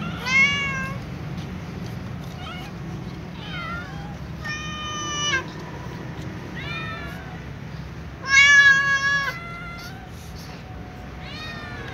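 Several kittens and cats meowing, high pitched and repeated, about seven meows, some overlapping. The loudest and longest comes about eight and a half seconds in.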